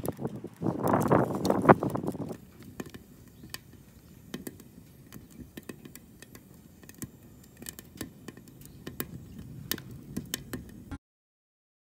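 For about two seconds, firewood sticks knock and scrape against a homemade steel wood stove. Then a wood fire crackles quietly with scattered small pops, and the sound cuts off abruptly near the end.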